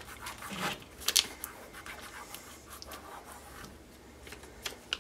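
Fingers rubbing and pressing clear vinyl transfer tape onto a painted wooden board: soft scratchy rubbing with scattered sharp clicks and crackles of the plastic film, the loudest just over a second in.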